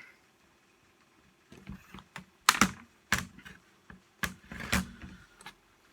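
Irregular sharp clicks and knocks of the saw's plastic and metal parts being handled and fitted together during reassembly, starting about a second and a half in, with a few louder knocks among lighter taps.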